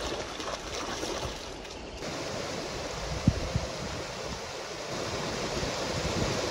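Shallow river rapids rushing steadily over rocks, with wind on the microphone. The sound shifts abruptly about two seconds in, and a brief thump stands out a little after three seconds.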